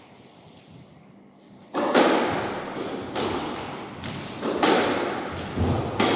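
A squash rally: a squash ball cracking off rackets and the court walls, sharp hits coming about once a second, often in quick pairs, each ringing on in the hall. The hits start about two seconds in, after near-quiet.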